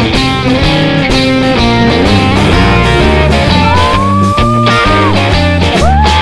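Background rock music: electric guitar over a bass line and a steady beat, with a long bent lead-guitar note in the middle.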